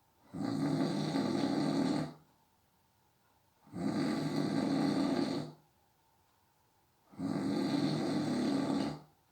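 A sleeping person snoring: three long, even snores of nearly two seconds each, about every three and a half seconds, with quiet pauses between.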